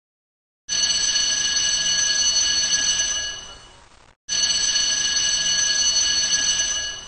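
A bell ringing fast and continuously, like an alarm clock, with several steady high tones. It plays for about three seconds and fades out, then the same ring plays again.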